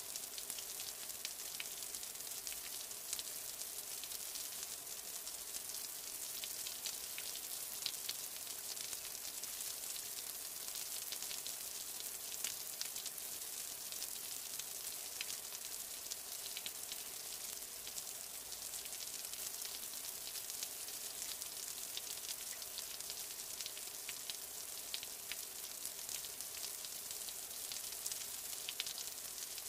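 Steady rain: an even hiss with many scattered drop ticks.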